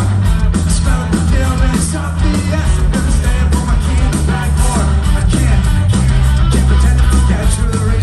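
Rock band playing loud through an arena PA, heard from among the crowd: steady drum beat, heavy bass and electric guitars, with some voices.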